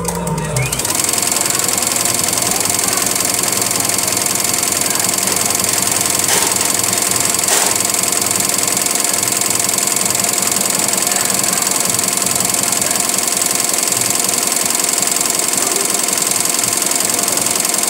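Single-head computerized embroidery machine stitching at speed: a loud, steady, fast mechanical chatter from the needle and moving frame.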